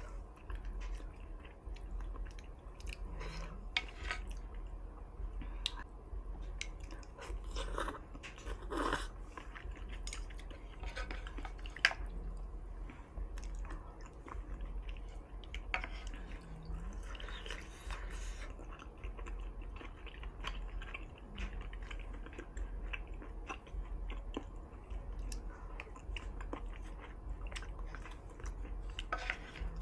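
A person chewing and eating hot pot with tofu and vermicelli noodles close to the microphone: an irregular run of small mouth clicks and smacks over a low steady hum.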